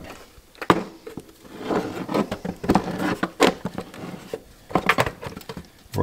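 Irregular clicks and knocks of hands handling a small portable reel-to-reel tape recorder as its case is opened and the metal chassis exposed.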